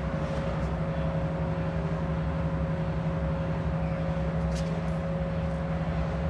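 A steady mechanical hum with a constant low tone, over an even rushing noise.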